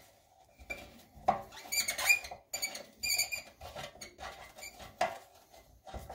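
A hex key turning a 5mm socket-head bolt on a motorcycle muffler's chrome cover, giving a run of short metallic squeaks and clicks as the bolt is unscrewed.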